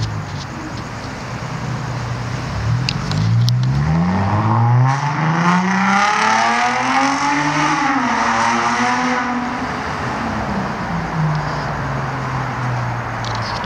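A motor vehicle's engine accelerating: its pitch climbs for several seconds, peaks about halfway through, then drops back and settles to a steady hum.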